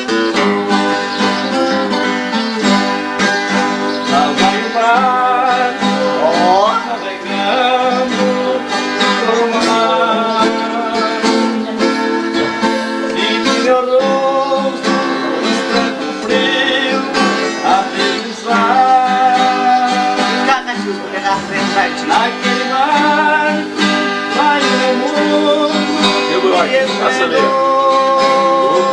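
Two acoustic guitars played together in an instrumental passage, plucked melody lines over strummed chords.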